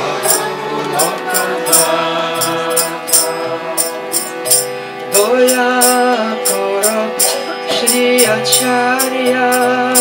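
Devotional Bengali bhajan: a harmonium holding sustained chords under a man's singing voice, which grows louder about halfway through, with karatalas (small hand cymbals) clashing in a steady rhythm.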